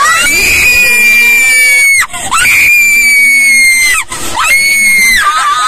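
A young woman screaming: three long, high-pitched shrieks, each held a second or two with a short break between, the last one dropping lower near the end.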